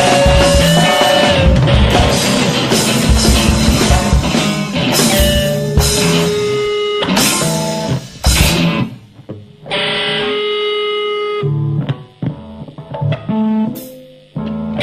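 Live free-improvised noise rock on electric guitars and drums. It is loud and dense at first, with sustained guitar tones over busy drumming. About eight seconds in it breaks off into sparse held guitar notes that cut off abruptly, with short gaps between them.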